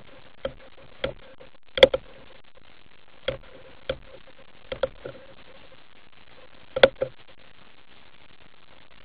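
Irregular sharp clicks and knocks heard underwater, about ten in all, over a steady hiss. The loudest come about two seconds in and again near seven seconds, some of them in quick pairs.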